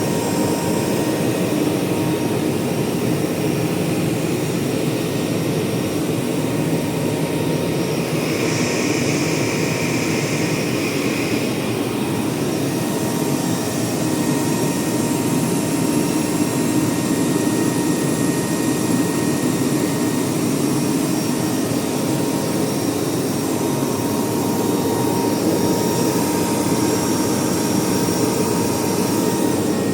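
Steady, loud rushing air noise of running machinery, like a cooling blower, with a faint constant hum tone. A higher hiss joins for a few seconds about eight seconds in.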